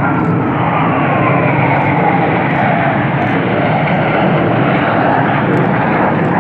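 Military jet aircraft flying past overhead with a loud, steady roar. Its engine tone slides downward in pitch during the first few seconds as it passes.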